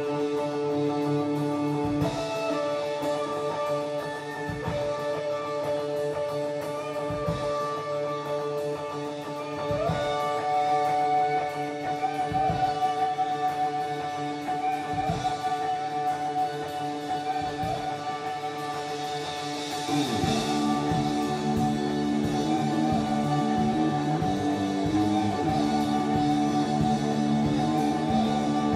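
A live duo playing: an electric guitar holds long sustained notes over slow, sparse drum hits about every two and a half seconds. About twenty seconds in the music gets louder and busier.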